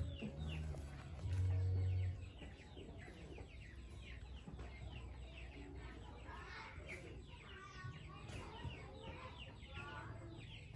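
A flock of chickens clucking and chirping, with many short calls overlapping throughout. A steady low hum sounds for under a second about a second in, louder than the birds.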